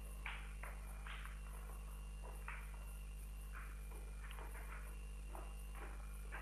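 Irregular scuffing footsteps of several people walking past, over a steady low electrical hum.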